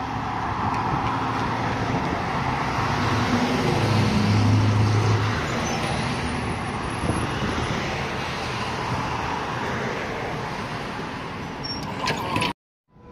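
B2-class electric tram pulling in along the platform and passing close, its motors humming low and its wheels running on the rails, loudest as it goes by a few seconds in. The sound cuts off abruptly near the end.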